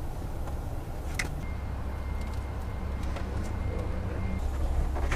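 A few light clicks of cables and plastic dash trim being handled as a GPS antenna cable is routed under a truck's dashboard, over a steady low hum. A faint steady high tone sounds for about three seconds in the middle.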